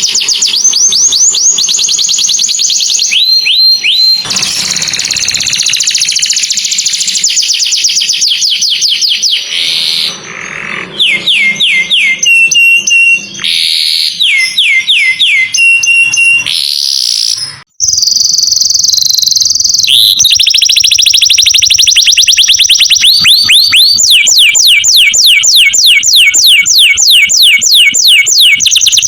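Canary singing: long, fast trills of quickly repeated high notes, with a few held whistled notes in the middle. The song cuts out briefly about two-thirds of the way through, then carries on with a fast trill.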